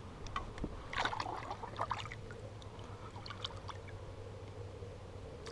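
Light water splashing and trickling at the boat's side, with a run of small crackling clicks in the first half over a steady low hum.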